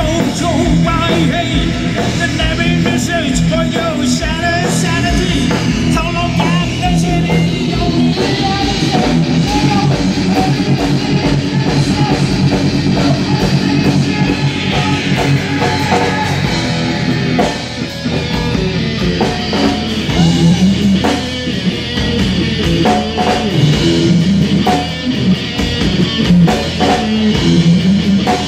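Rock music with guitar, drums and singing.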